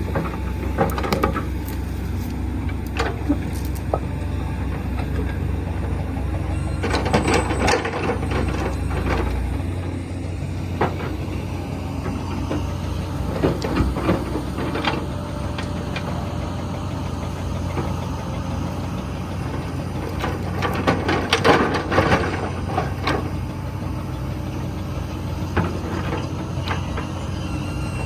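Komatsu PC120 excavator's diesel engine running steadily, with bursts of rattling and clanking at several points: about a quarter of the way in, near the middle and again a few seconds later.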